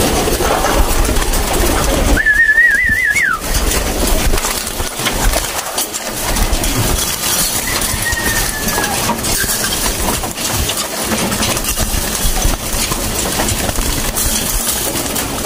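Racing pigeons cooing and flapping their wings, with steady scuffling and clattering among the flock; a brief warbling whistle sounds about two seconds in.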